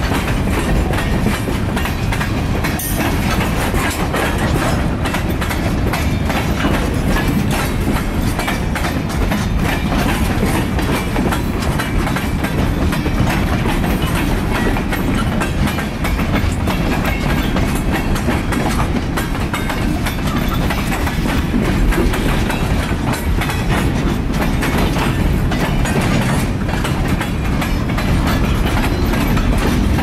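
Canadian National freight train of empty open-top hopper and gondola cars rolling past at close range. A steady, loud rolling noise of steel wheels on rail is laced with constant clickety-clack and knocks from the wheels and couplers.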